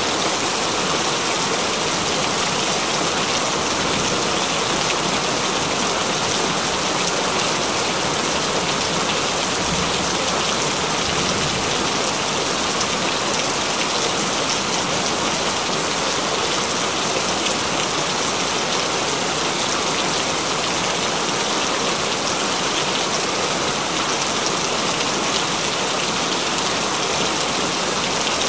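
Steady, continuous rain falling: an even hiss of many drops that holds at the same level throughout.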